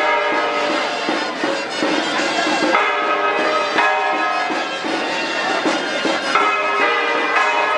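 A marching rondalla of guitars with an accordion playing a tune, its held chords changing about every second, with bright bell-like ringing tones mixed in.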